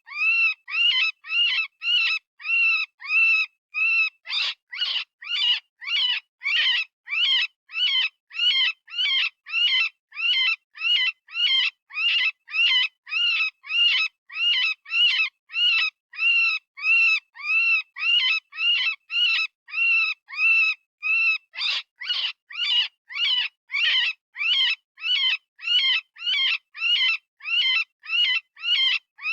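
Synthesized rabbit distress call of the kind used in predator-calling: short, high, pitched squealing cries repeated about twice a second, each rising and then falling in pitch. A few cries about 4 and 22 seconds in sound harsher.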